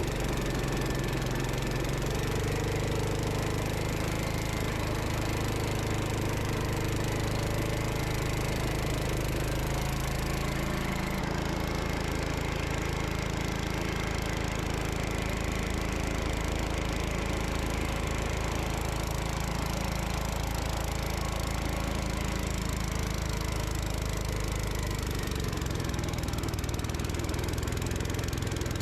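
Gravely Commercial 10 walk-behind tractor's Kohler engine running steadily while it drives its MA-115 snow blower through deep snow. The engine note shifts slightly about eleven seconds in and again near the end.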